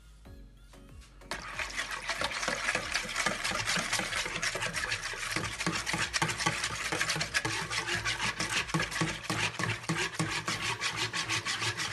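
Wire balloon whisk beating a thin liquid of milk and water in a plastic bowl: fast, even scraping and sloshing strokes that start about a second in and run on without a break.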